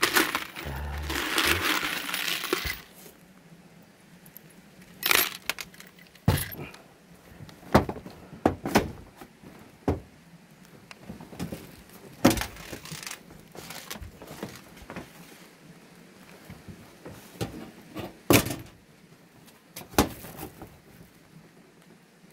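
Metal screws rattling and clinking in a plastic jar as a gloved hand rummages through them for about three seconds. After that come a series of separate clicks and knocks.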